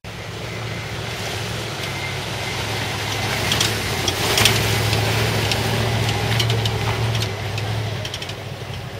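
Pickup truck engine running steadily as the truck drives over a sandy dirt track, with knocks and rattles most thickly around the middle. The sound builds to its loudest about halfway through and then eases off.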